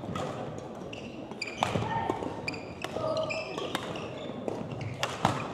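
Badminton rally in a gym: sharp racket hits on the shuttlecock at irregular intervals, with short squeaks of players' shoes on the hardwood court floor.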